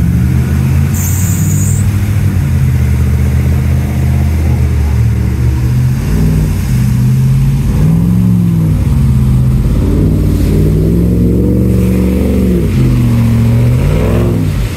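Chevy pickup's engine revving up and down repeatedly as the throttle is worked to drive through a muddy creek while towing a boat trailer.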